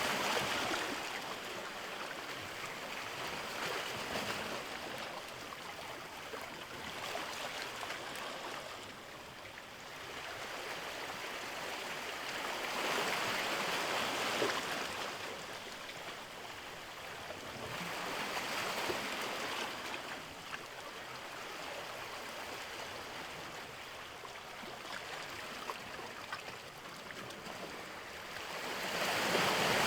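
Sea waves washing in, a hissing rush that swells and falls back every several seconds, with the biggest surge near the end.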